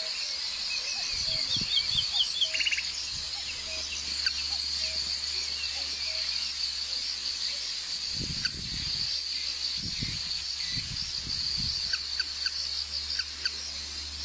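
Outdoor ambience: a steady high insect drone with birds chirping here and there, and a cluster of low thumps from about eight seconds in.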